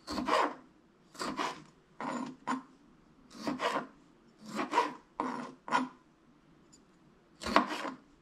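A knife slicing cherry tomatoes in half on a plastic cutting board: a series of short cutting strokes, often in pairs, with a pause of about a second and a half before a last pair near the end.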